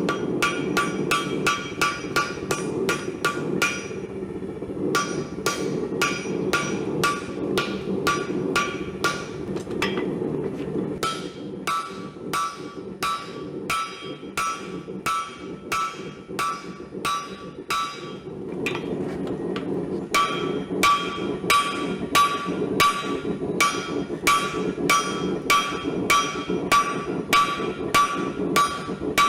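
Hand hammer striking hot steel on an anvil while forging an axe head to shape: about three blows a second, each with a short metallic ring. The blows come in runs with brief pauses between, over a steady low rushing noise.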